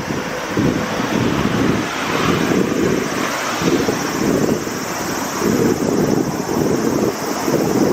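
Wind buffeting the microphone of a camera on a moving bicycle: a loud, steady rush with uneven low gusts throughout.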